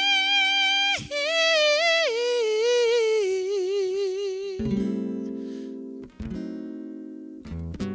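A male singer holds a long note, then lets it fall away in a wavering, step-by-step descending line. From about halfway, a few chords are strummed on an acoustic guitar and left ringing.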